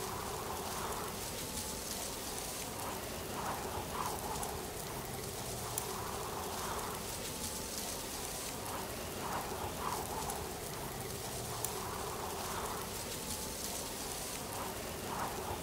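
Steady patter and hiss like rain, with a faint pattern that repeats every few seconds.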